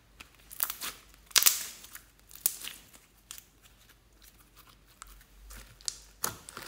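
White slime being pressed into and stretched over a bowl of glitter and foam beads, giving irregular sticky crackles and pops in clusters, the loudest about a second and a half in.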